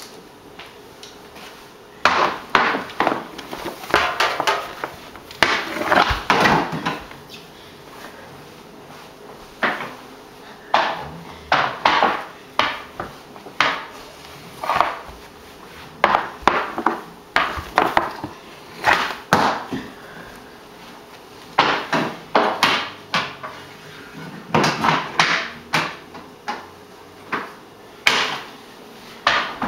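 Hockey stick knocking on a hardwood floor during stickhandling: quick runs of wooden clacks and taps, with short pauses between the runs.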